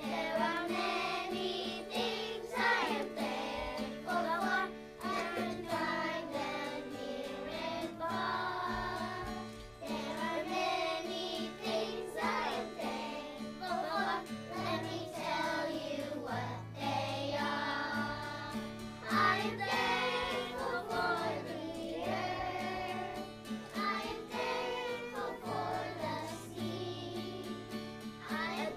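A group of children singing a song together in unison over instrumental accompaniment.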